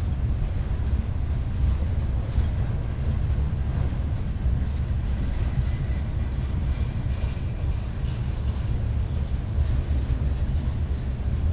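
Freight train boxcars rolling past at close range: a steady low rumble of steel wheels on the rails, with a few light clicks from the cars.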